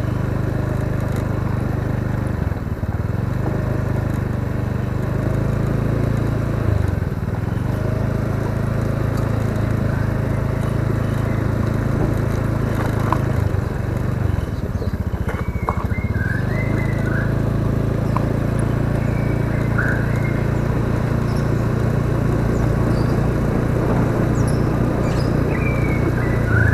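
Honda scooter's single-cylinder engine running at low riding speed, a steady low drone that dips briefly a few times. A few short high chirps come through in the second half.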